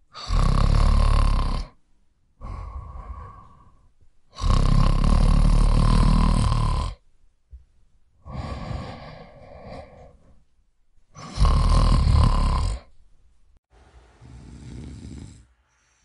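A man snoring in deep sleep: three loud snores, each one and a half to two and a half seconds long, alternating with quieter breaths in between.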